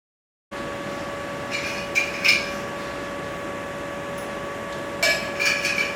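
Steady electrical hum of a lecture-room recording, with a few short sharp clicks and clinks about two seconds in and again near the end.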